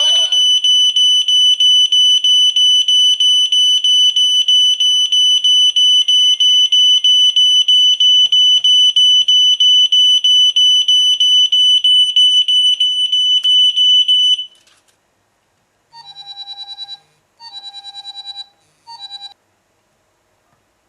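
An alarm system's siren sounds a loud, high, rapidly pulsing alarm tone that cuts off suddenly about two-thirds of the way through. A few seconds later come three short bursts of a lower, rapidly pulsing tone.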